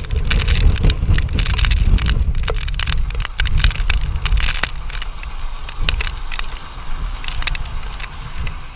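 Strong storm wind buffeting the microphone: a heavy low rumble in gusts, with crackling and sharp clicks, strongest for the first few seconds and then easing.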